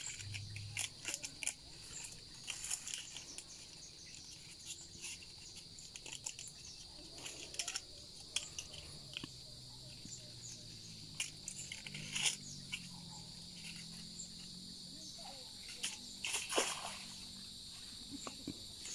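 Steady high-pitched insect chorus from the mangrove, with scattered light clicks and crackles of something being handled close by.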